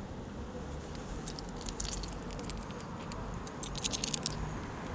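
Light metallic jingling and clinking: scattered small clicks starting about a second in, growing denser near the end, over a low steady rumble.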